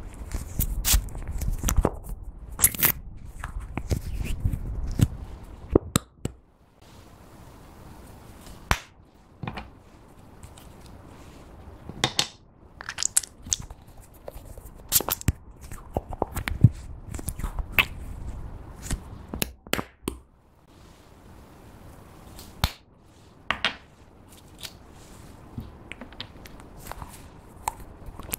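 Small plastic glitter glue tubes handled and squeezed by hand: scattered sharp clicks and crackles of the plastic, irregular and close up.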